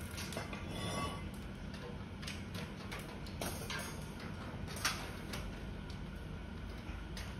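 Small metal parts of a gas stove being handled: scattered light clicks and clinks of sheet metal and fittings, with one sharper click a little before five seconds in.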